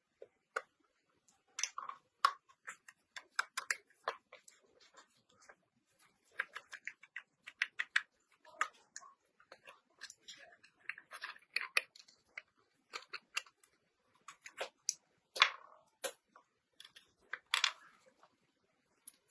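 Irregular clicks, taps and short scrapes of hand work on the metal parts of an old rusty gun being restored. The strikes come unevenly, a few of them louder.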